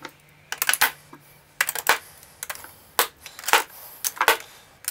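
Lipstick cases clicking and tapping against one another and the clear acrylic drawer dividers as they are handled and set into place: a series of irregular sharp clicks.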